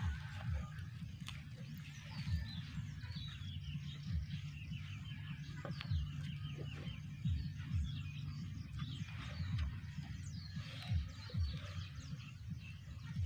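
Small birds chirping in quick runs of short high notes, over a steady low rumble with soft low thumps every second or so.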